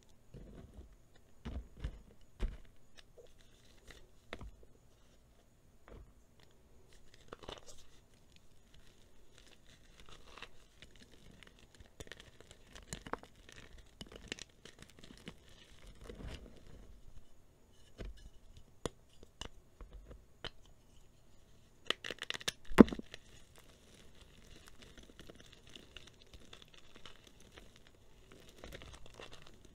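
Dried re-formed gym chalk being crushed and crumbled by hand: irregular small crunches and crackles as lumps break and grind into powder, with a cluster of louder snaps and one sharp crack about three-quarters of the way through.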